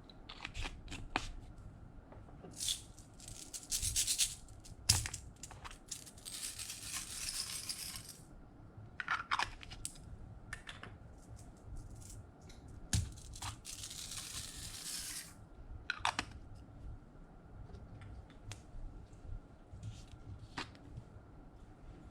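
Slime being squished and stretched by hand: scattered sticky clicks and pops, with two longer crackling stretches a couple of seconds each.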